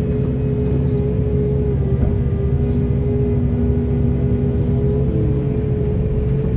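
Large hydraulic excavator's diesel engine running under load, with a steady whine from the hydraulics and short hissing bursts every second or so.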